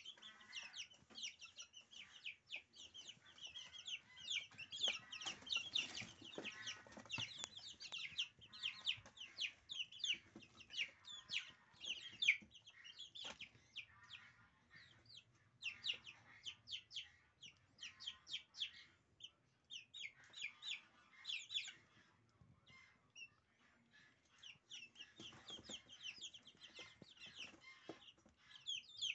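A brood of 20-day-old Silkie chicks peeping: many short, high, falling cheeps overlapping one another, thinning out briefly about three-quarters of the way through.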